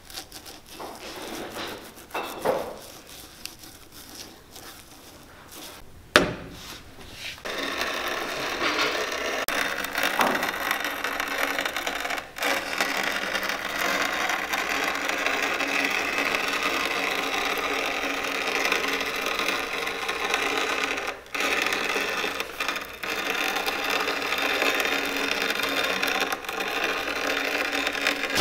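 Glue brush dabbing and scraping on a leather boot sole, with one sharp click about six seconds in. Then, from about seven seconds in, a steady shop-machine noise while a leather insole blank is trimmed on a cutting machine.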